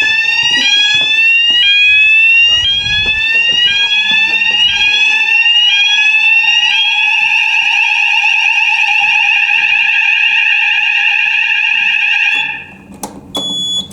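Electronic fire alarm sounders going off during a call-point test. They give a rising sweep tone repeated about once a second, then a fast warbling tone over a steady lower tone. All of it cuts off suddenly near the end as the alarm is silenced, followed by a few sharp clicks.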